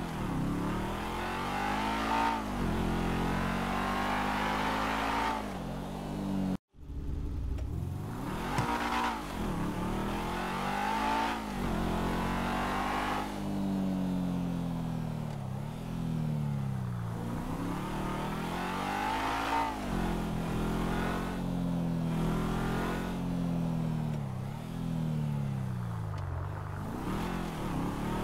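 Sports car engine revving up and down again and again, its pitch rising and falling in swells every two or three seconds, broken by a split-second cut to silence about six and a half seconds in.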